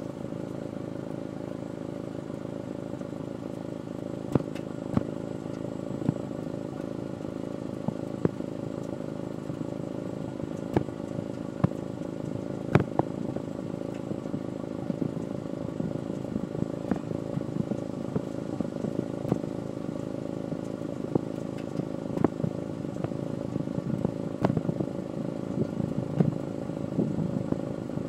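Honda S2000's four-cylinder engine idling, its steady hum broken by sharp, irregular pops every second or so that come more often near the end: the sign of a misfire at idle.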